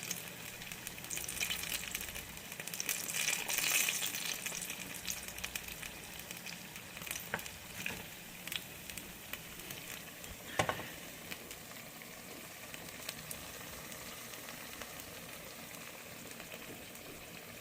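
Turon (banana and jackfruit spring rolls) frying in hot oil in a pan: a steady sizzle with fine crackles, a little louder in the first few seconds. A single sharp click sounds about ten seconds in.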